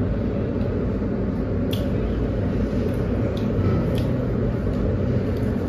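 Steady low rumble of background noise, with a few faint clicks and squishes of people eating by hand, tearing roti and chewing.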